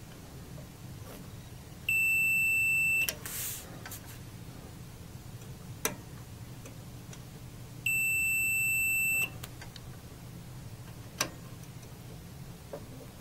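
RadioShack digital multimeter's continuity beeper sounding twice, each a steady high-pitched beep of about a second, as the test probes close the circuit across a fuse's holder clips: a sign that the fuse and its clips conduct. Two sharp clicks come between and after the beeps.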